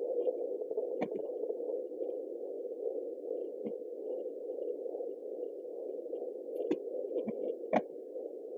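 Yunos fetal Doppler's speaker putting out a steady, muffled hiss as the probe listens on a seven-month pregnant belly for the baby's heartbeat, with a few short clicks along the way.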